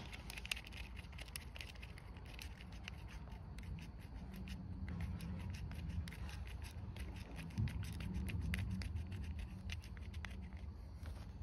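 Hand work on small metal parts, a bolt and bracket being fitted: scattered light clicks and scraping over a steady low rumble.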